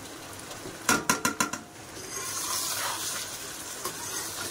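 A metal spatula clinks several times against a metal plate and kadhai, about a second in, as fried fish pieces are scraped into the pan; after that a steady sizzle as the fish is stirred and fried in the masala.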